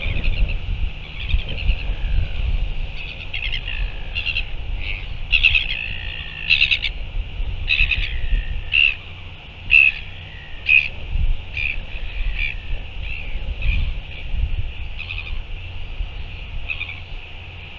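Birds calling outdoors: a busy run of short, high, repeated calls, some sliding down in pitch, thickest in the middle and thinning toward the end, over a low uneven rumble.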